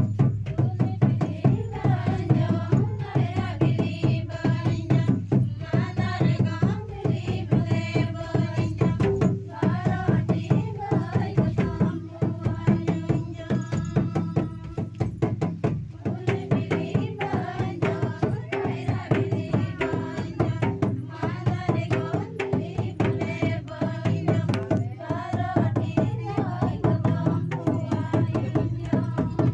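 Group of women singing a Santhali dong wedding song, accompanied by a barrel-shaped hand drum beating a fast, steady rhythm. The singing comes in phrases with short breaks, while the drumming runs on underneath.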